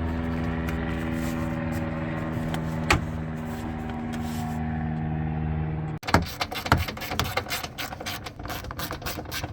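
A steady mechanical hum with an unchanging pitch, with one sharp click partway through. The hum cuts off abruptly about six seconds in and gives way to a quick run of clicks and light knocks from parts being fitted by hand in a car's engine bay.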